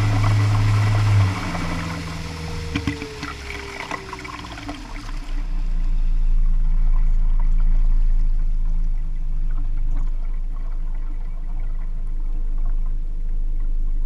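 Floatplane slowing on the water: the engine is throttled back about a second in, the rush of water and spray along the aluminium float fades over the next few seconds, and the engine then runs on at a low, steady idle.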